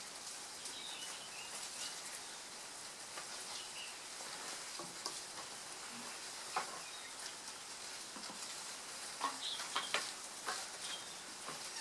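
Scattered crackles, snaps and rustles of leaves as a plum-headed parakeet plucks and tears at foliage, more frequent and louder in the last few seconds, over a steady high hiss.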